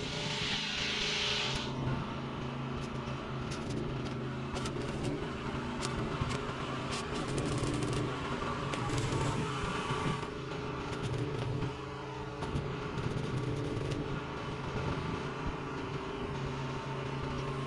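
Stick (arc) welding on a steel-tube frame: irregular sharp crackles through the middle of the stretch, over a steady low mechanical hum.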